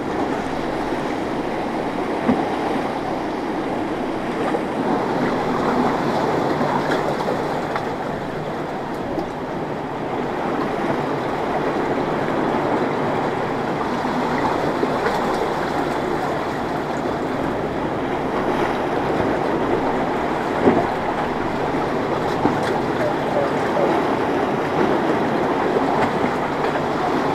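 Outboard motors of boats running through rough inlet water, a steady engine drone mixed with the wash of waves and spray. Two sharp knocks stand out, about two seconds in and about 21 seconds in.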